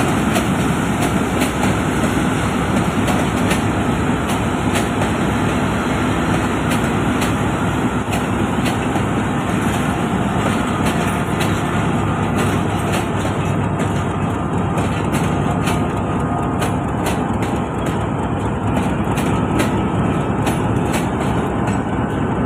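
Passenger train coaches rolling past, their wheels clicking over rail joints at an irregular pace against a steady low rumble. The clicks come more often in the second half.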